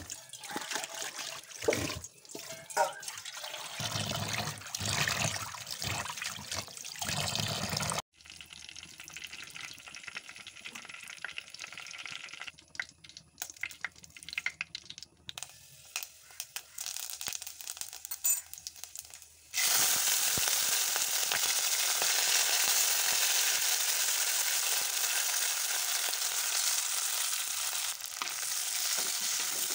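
Small fish being rinsed by hand in a basin of water in a steel sink, with splashing and bowl handling. After a sudden cut comes a quieter stretch with a few light clicks as oil heats in a clay pot and fenugreek seeds go in. About two-thirds through, a loud, steady sizzle starts as sliced onions fry in hot coconut oil.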